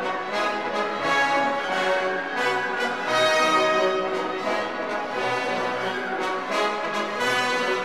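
Orchestral background music with brass, sustained chords changing every second or so.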